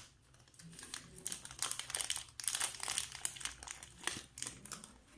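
Small plastic packet crinkling and rustling in irregular crackles as it is handled, the wrapping of an electronic sensor module.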